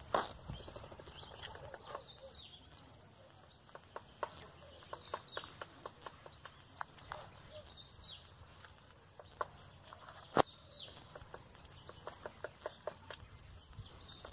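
Woodpecker hammering with its bill: single hard knocks at uneven intervals, the loudest about ten seconds in, with small birds chirping.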